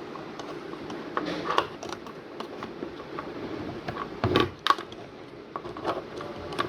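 Scattered light clicks and knocks of small parts being handled, with a louder pair of knocks about four and a half seconds in.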